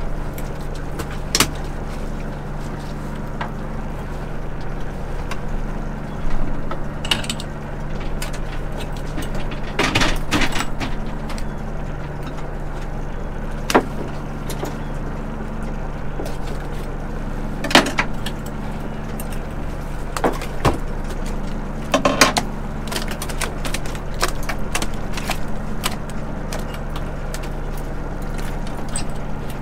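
A fishing boat's machinery hums steadily, with scattered sharp knocks and clatter on deck, about eight of them spread across the stretch.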